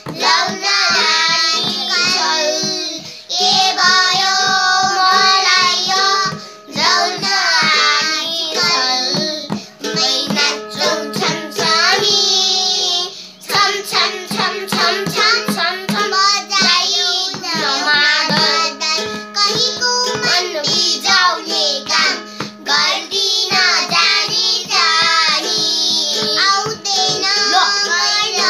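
Young children singing a Nepali song together, accompanied by a strummed toy ukulele and a madal hand drum beaten in a steady rhythm.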